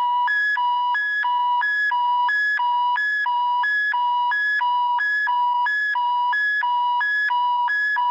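Electronic two-tone signal, a high beep and a low beep alternating evenly with no gap, a little under two high-low pairs a second, like a hi-lo alarm.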